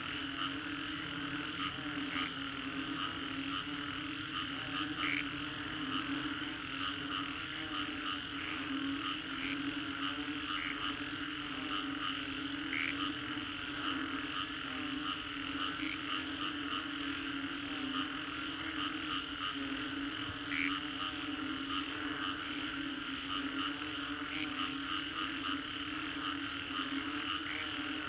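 A dense chorus of frogs calling after a rainstorm. A steady low droning call runs under a higher chirping layer, and short sharper calls stand out every second or two.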